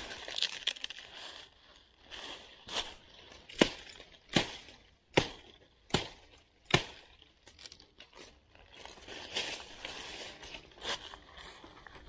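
Hatchet chopping a dead branch: five sharp strikes, less than a second apart, in the middle, with dry leaves crunching and rustling before and after.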